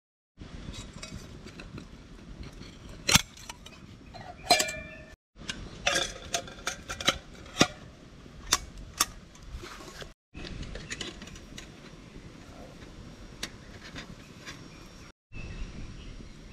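Aluminium camping cooker pots and lids clinking and clattering against each other as the smaller pieces are nested inside the larger pot. There are several sharp metal clinks with a short ring, two loud ones a few seconds in and a quick run of them in the middle, then only quieter handling.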